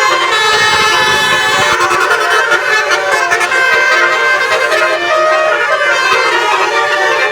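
Tour bus's 'basuri' telolet multi-tone horn playing a tune: several horn notes sounding together, held and stepping from note to note.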